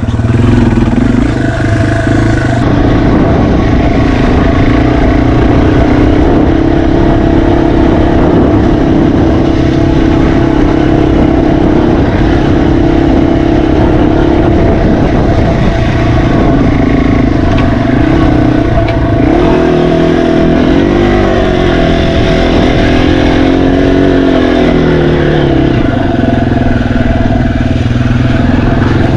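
Yamaha TW200's single-cylinder four-stroke engine running steadily as the bike is ridden along a dirt trail, its revs rising and falling a few times about two-thirds of the way through.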